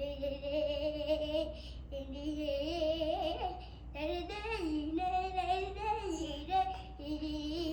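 A child's voice singing long held, wavering notes that glide up and down, with short breaks between phrases.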